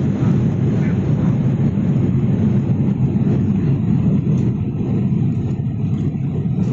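Aircraft noise: a loud, steady low rumble of engines and rushing air with no change in pitch.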